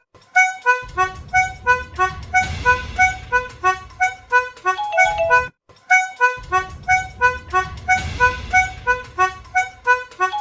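A short melody of bright, reedy pitched notes, each phrase ending in a quick run of higher notes. The phrase repeats about every five and a half seconds, with a brief silent gap between repeats.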